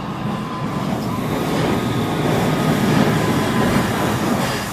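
HO-scale model of a Pennsylvania Railroad streamlined K-4 steam locomotive and its passenger cars running past close by. The train's running noise grows louder to a peak about three seconds in, then eases off.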